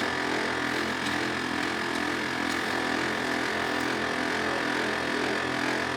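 Ricoh Aficio SP 8200dn laser printer running with a steady grinding noise while printing. The grinding comes from a photoconductor drum unit (PCDU 2) that is stuck and cannot turn because of built-up used toner.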